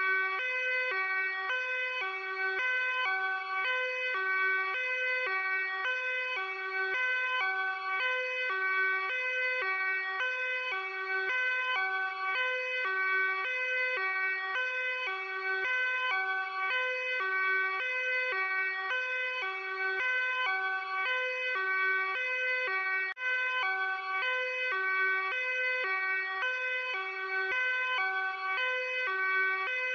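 Luxembourg police car's hi-lo two-tone siren, switching steadily between a low and a high note about twice a second.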